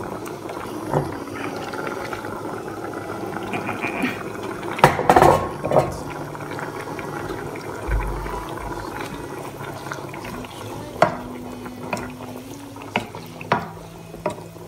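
Soup bubbling in a saucepan while a wooden spoon stirs in fresh spinach, with a few sharp knocks of the spoon against the pan, the loudest about five seconds in.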